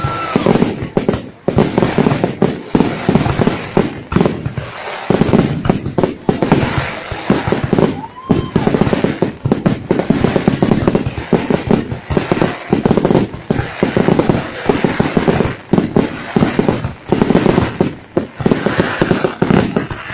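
Fireworks going off in rapid, overlapping succession: a dense, continuous run of bangs and crackles. Near the start and again about eight seconds in, a brief rising-and-falling whistle sounds.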